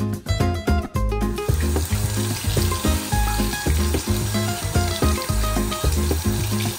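Tap water running into a bathroom sink over a puppy being washed, a steady hiss that starts about a second in. Background music with a plucked melody and a steady bass beat plays throughout.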